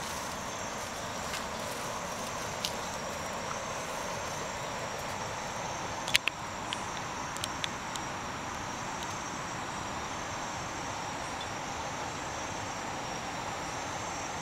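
Steady high-pitched drone of forest insects over an even hiss, with a few sharp clicks, the loudest about six seconds in.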